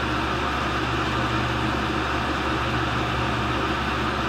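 Tool and cutter grinder running steadily, its grinding wheel spindle and work head motors humming at constant speed with an even hiss, with the wheel not yet cutting.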